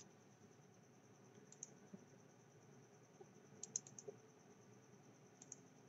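Near silence broken by a few faint computer mouse clicks, a quick cluster of them near the middle, as on-screen annotations are undone.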